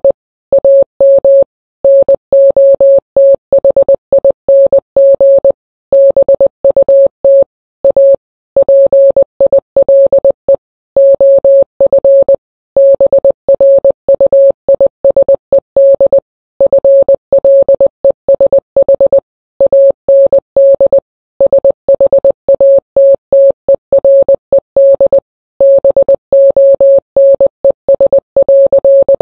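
Morse code sent as a single steady beep tone, keyed on and off in short dots and longer dashes at a brisk pace, with brief gaps between letters and words.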